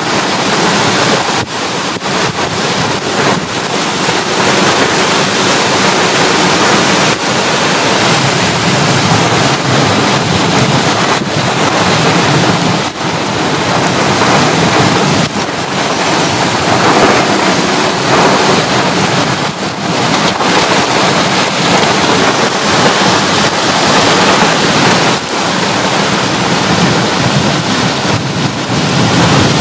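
Heavy rain and strong gusty wind in a thunderstorm, a steady loud rush with wind buffeting the microphone.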